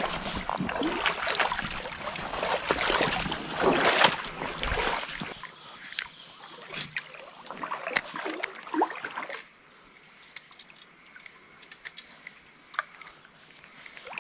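Shallow creek water sloshing and splashing as someone wades through it, loudest for the first few seconds. After that it settles to a quieter trickle with scattered light clicks, and grows quieter again about two-thirds of the way through.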